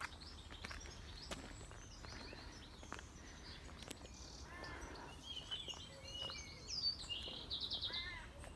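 Several songbirds singing and calling, faint: short chirps and whistled notes, with a quick trill near the end.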